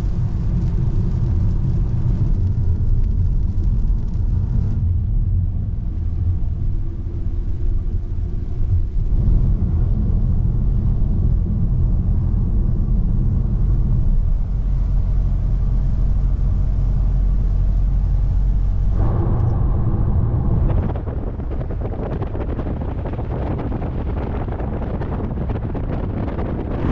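Steady low rumble of a car driving on a wet road, heard from inside the cabin. About two-thirds of the way in, the low rumble drops and a broader, hissier rushing noise takes over.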